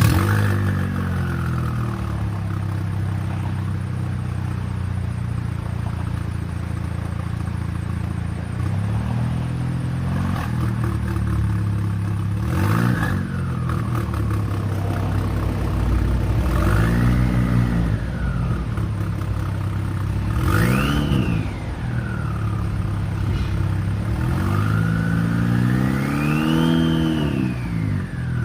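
Turbocharged engine of a 2014 Volkswagen Jetta running with an open downpipe, a steady low drone. It revs up and falls back about five times, with a high whistle rising and falling with each rev.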